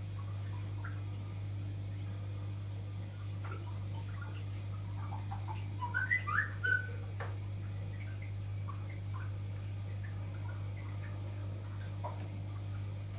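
Steady low hum of aquarium equipment, with faint scattered ticks and a short run of high chirps about six seconds in.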